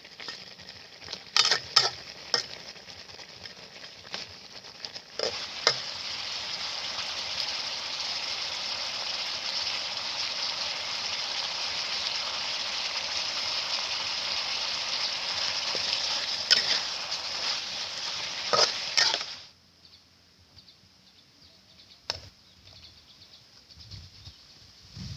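Food frying in a hot pan, sizzling loudly for about fourteen seconds as it is stirred, with a few sharp clinks of a utensil against the pan. Before that the sizzle is quieter. It cuts off abruptly about nineteen seconds in, leaving near quiet with a faint click or two.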